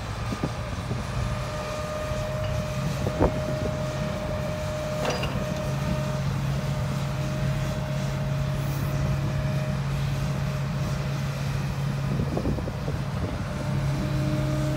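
Komatsu PC350LC-8 hydraulic excavator's six-cylinder diesel engine running steadily under load with a constant hum and hydraulic whine as the boom is raised and the arm is swung out and curled back in. A few sharp clunks are heard, the loudest about three seconds in.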